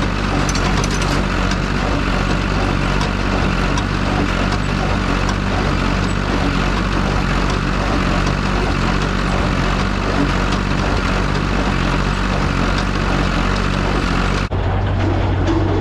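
Farm tractor engine running steadily under load, pulling a working square baler. The sound changes abruptly near the end.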